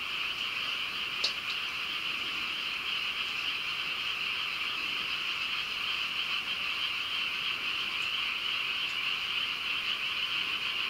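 A dense, steady chorus of many frogs calling at night, the individual calls blending into one continuous sound. A single sharp click stands out about a second in.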